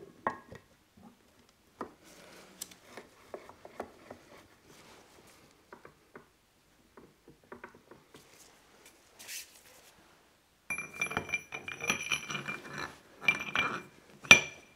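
Steel gearbox parts of a Toyota E154F transfer box being handled and fitted together: light scattered clicks and knocks at first, then about four seconds of rapid metallic clinking with a ringing note, which stops sharply near the end.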